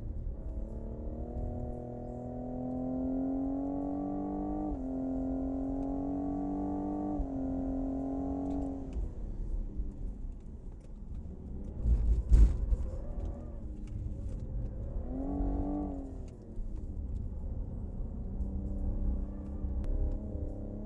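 The 2020 Cadillac CT5-V's twin-turbo V6 pulls hard through the gears, rising in pitch with two quick upshifts. It then goes off-throttle, and a loud thump comes about halfway through. After that the car accelerates again, the engine note climbing.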